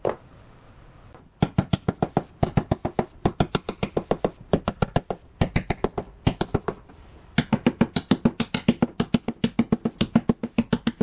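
Small mallet tapping black inserts into the shelf-pin holes of a painted cabinet side: quick runs of sharp taps, about six to eight a second, with short pauses between runs.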